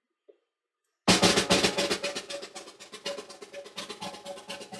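Near silence, then background music with busy snare and bass drumming starts abruptly about a second in.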